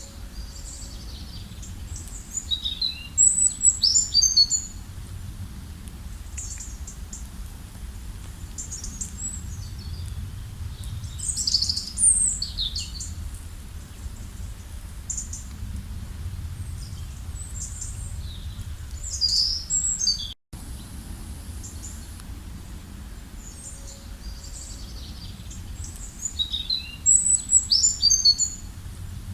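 A songbird singing a short, high phrase of quick chirps four times, about eight seconds apart, over a low steady background rumble. The sound cuts out completely for an instant about two-thirds of the way through.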